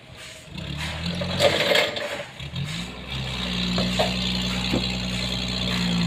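Forklift engine revving under load as it pushes a large trembesi log across the ground, rising in pitch twice and then held steady at high revs. A brief rushing noise comes about a second and a half in.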